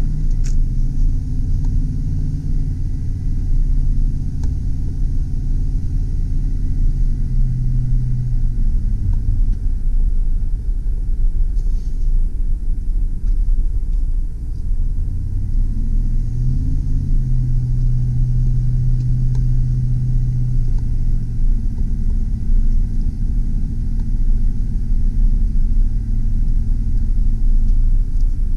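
2003 GMC Sierra 2500HD's 6.0-litre V8 petrol engine running while the truck drives, heard from inside the cab over a steady low road rumble. The engine note drops about a third of the way through, climbs again a little past halfway and eases off a few seconds later.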